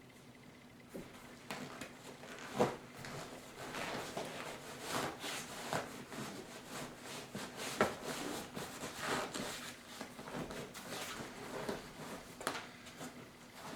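Handling noise from a seat cover being worked over a foam seat cushion: irregular rustling and scraping, with scattered taps and two sharper knocks, one about two and a half seconds in and one near the middle.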